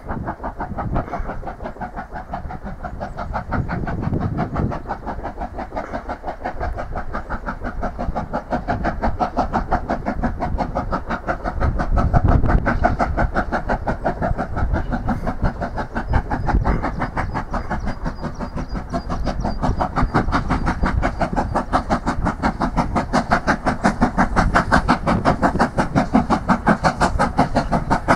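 LMS Black Five 4-6-0 steam locomotive 45231 working hard up a steep gradient with a heavy train. Its exhaust beats come rapid and even and grow louder as it approaches, with swells of low rumble about 4 and 12 seconds in.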